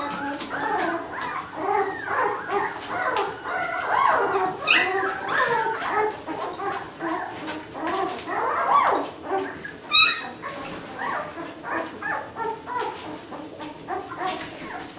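A litter of nine-day-old Labrador puppies whimpering and crying, many high thin calls overlapping without pause: the distress calls of nervous newborn pups. About ten seconds in there is one sharp, higher squeal, the loudest sound.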